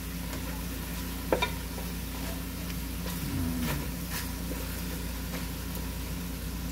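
Chunks of lamb sizzling in hot oil in an aluminium pot as they are stirred with a wooden spatula, being browned. The spatula gives a few light knocks against the pot.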